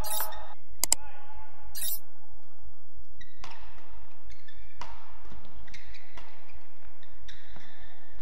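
Badminton rally: a shuttlecock struck back and forth by rackets, a sharp hit about every second from about three seconds in, with short high squeaks between the hits.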